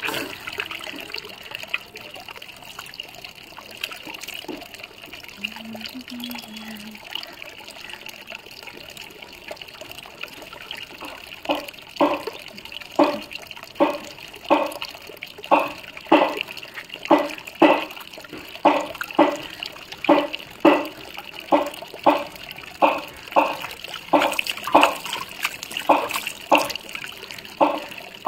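Water running steadily into a bucket during a mug bath. From about a third of the way in, a regular series of short wet slaps or splashes comes about twice a second.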